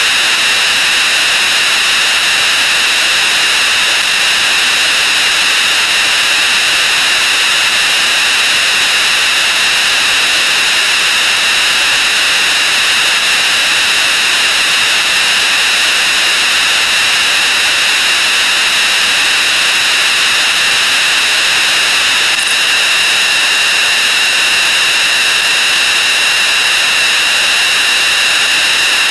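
Masses of overlapping sound effects played at 64 times speed, blurred into a loud, unbroken harsh hiss with a steady high-pitched whine running through it.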